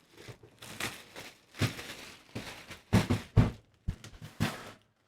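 Plastic shrink-wrap film being torn and pulled off a cardboard kit box, a string of irregular crinkling rips with a couple of dull knocks.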